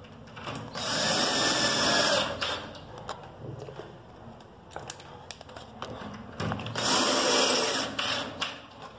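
Cordless drill-driver driving long screws into a particleboard bunk-bed frame, in two runs of about a second and a half each, with small knocks from handling the tool and screws in between.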